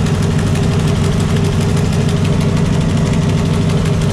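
Shelby Cobra replica's 350 V8 idling steadily.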